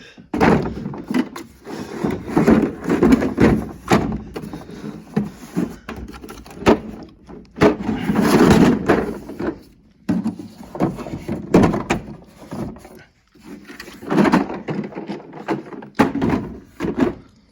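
Tool chest drawers sliding open and shut while tool cases are shifted around and set into a drawer, with irregular knocks and clatter and a longer sliding rattle about halfway through.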